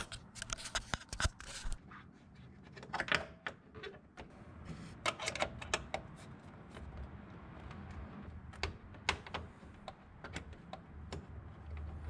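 Irregular small clicks, clinks and light knocks of a nut and washer being handled and threaded onto a stud by hand while an intake scoop is bolted in place. A low steady hum comes in about halfway through.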